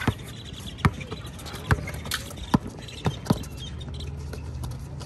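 A basketball being dribbled on a concrete court: six sharp bounces in the first three and a half seconds, roughly one a second, with the last two close together.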